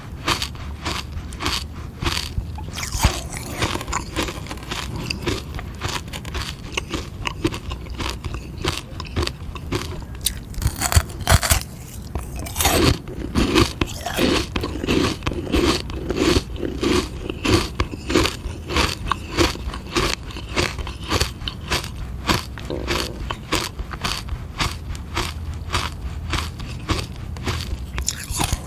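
Close-up crunching and chewing of a hard sugar-water ice lolly: repeated bites and chews at roughly two a second, heavier and louder around the middle.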